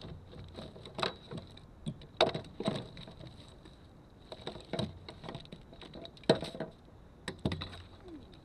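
Irregular knocks and clicks of handling in a bass boat, a handful of sharp taps spread unevenly, the sharpest about six seconds in.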